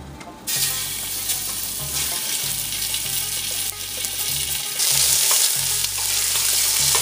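Chopped pork pieces dropped into hot oil in a stainless steel soup pot, sizzling as they start to brown, beginning suddenly about half a second in. The meat is stirred around the pot with a spoon, and the sizzle grows a little louder about five seconds in.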